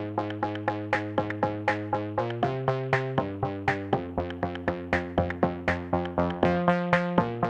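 Electronic background music: quick repeated synthesizer notes, about four a second, over chords that change every second or so.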